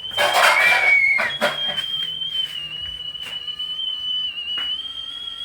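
Whistling kettle at the boil, giving one steady high whistle that wavers slightly in pitch. In about the first second a second, lower whistle tone joins it with a loud burst of hiss.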